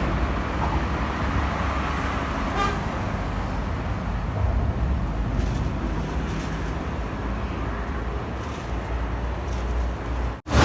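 Road traffic going by in a steady low rumble, with a short car-horn toot about two and a half seconds in.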